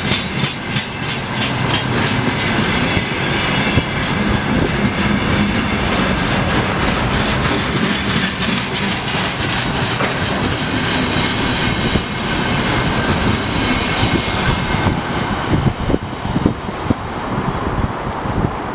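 Container flatcars of a freight train rolling past at speed: a steady rumble of steel wheels on rail with clickety-clack over the rail joints. Near the end the hiss eases as the last cars go by.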